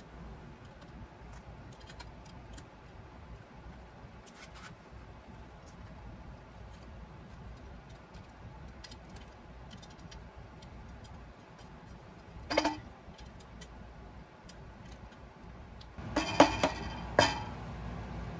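Faint clicks and light taps of hands handling wiring and an aluminum plate inside a metal scooter frame, with a short flurry of clicks about two thirds of the way in. Louder sharp knocks and clicks start near the end.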